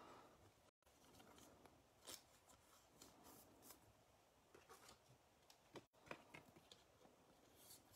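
Near silence, with faint, scattered rustles and small ticks of trading cards being handled and slid into plastic sleeves.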